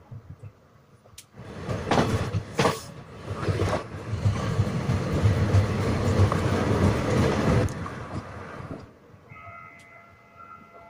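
Passenger coach of an Indian express train running, heard from the doorway: wheels clattering on the track with a couple of sharp clacks, then a louder stretch of rumbling that fades off. A faint steady whine follows near the end.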